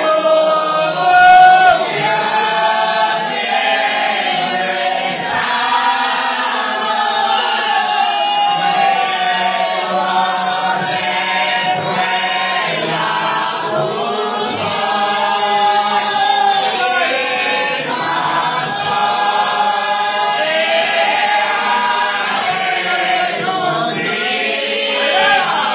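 Church congregation singing together, many voices in unison.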